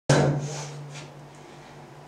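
Electric guitar chord struck once at the start and left ringing through the amplifier, fading away over about a second and a half.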